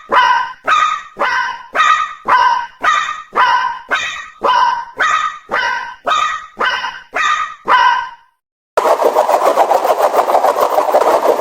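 Japanese railroad-crossing alarm ringing in an even rhythm of about two strokes a second, each stroke a bright ding that dies away quickly. It stops about eight seconds in, and after a brief silence a dense, steady rushing noise takes over.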